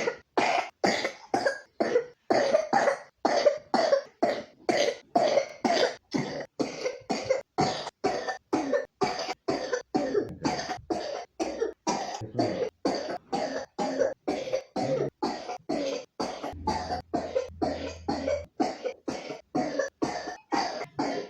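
A three-year-old child with pneumonia coughing over and over, short sharp coughs at about two to three a second.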